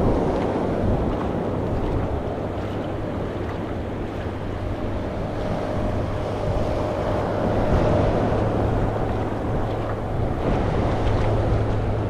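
Ocean waves breaking and washing on the shore in strong wind, with wind rumbling on the microphone. A faint steady hum rises for a few seconds in the middle.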